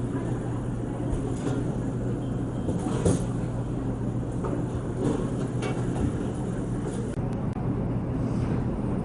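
A steady low hum under a wash of background noise, with a few short clicks or clinks, one about three seconds in and several around five to six seconds in.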